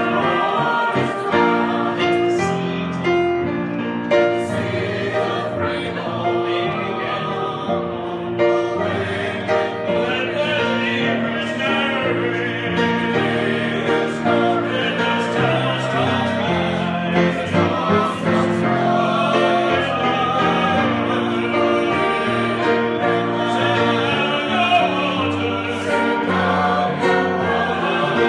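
Mixed church choir of men's and women's voices singing a gospel song in held, sustained notes.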